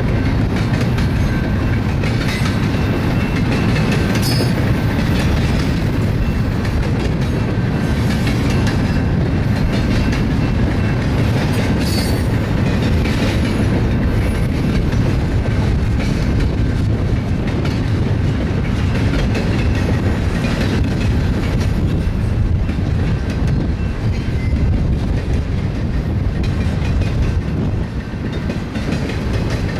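Cars of a BNSF double-stack container train rolling past, a steady, loud rumble with wheels clattering over the rail joints.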